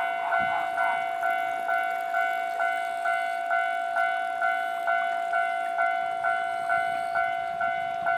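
Japanese railway level-crossing warning bell ringing its repeated "kan-kan" strikes, a little over two a second, with a steady ringing tone between strikes. It is the signal that a train is approaching the crossing.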